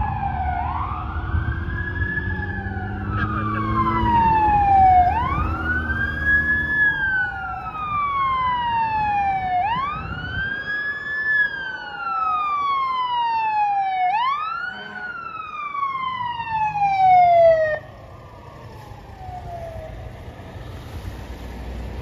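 Fire truck siren wailing, each cycle rising quickly and then falling slowly, about every four to five seconds, over a low engine rumble. It cuts off suddenly near the end.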